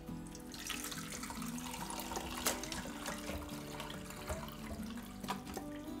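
Hot water pouring steadily from a small saucepan into a bowl of espresso-machine parts, filling it to soak them.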